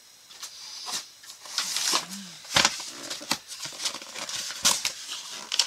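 Hands unpacking and handling small tools and their packaging: irregular rustling with scattered sharp clicks and knocks.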